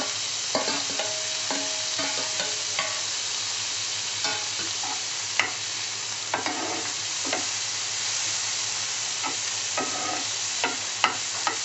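Chopped tomatoes, onions and green chillies sizzling in butter in a non-stick frying pan while a steel spatula stirs and scrapes them, its strikes on the pan giving sharp clicks now and then, the loudest about halfway through and near the end.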